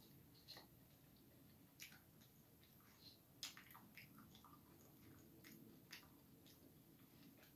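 Faint chewing of a mouthful of cereal in milk, with a few soft clicks and crunches scattered through it.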